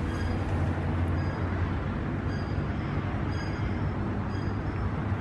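Handtmann VF200B vacuum filler running: a steady mechanical hum with a strong low tone.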